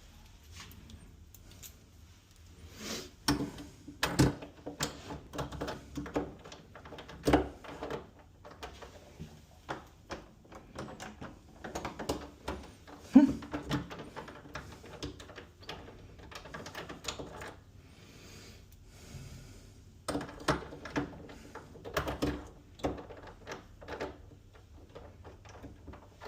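Irregular metallic clicks, knocks and rattles of door handle and lock hardware being handled and fitted, coming in clusters with one loud knock about 13 seconds in.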